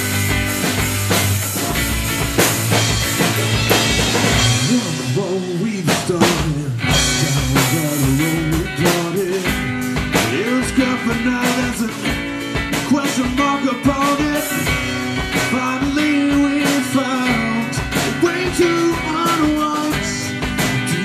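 Rock song with a male singer over guitar and a steady drum-kit beat; the vocal comes in about five seconds in.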